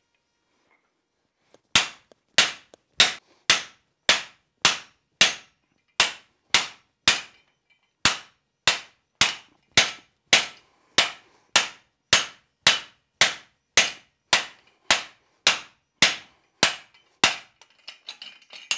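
Hand hammer striking the top die of a guillotine fullering tool on the anvil, steel on steel: a steady run of nearly thirty blows, a little under two a second, each ringing briefly. The fullers are necking in a hot 1-inch square bar to isolate the mass for a lump. A few light clinks follow after the blows stop.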